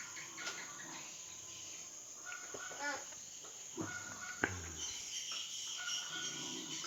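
Crickets and other insects chirring steadily, with short bird calls over them and a couple of sharp clicks near the middle. The insect chorus thickens about five seconds in.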